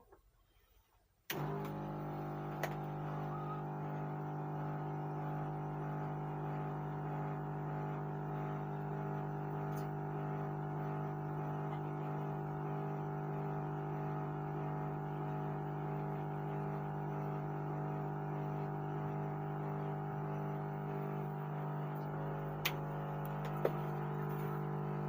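Background music: a steady sustained synthesizer chord that starts abruptly about a second in and holds unchanged, with a few faint clicks.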